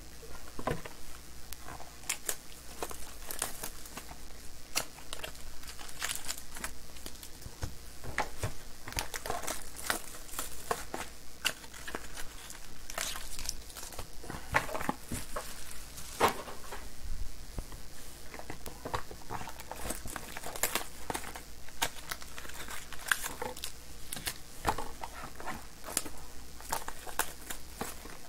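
Trading-card pack wrappers crinkling and tearing while packs are opened and cards and boxes are handled: an irregular stream of crackles and small clicks.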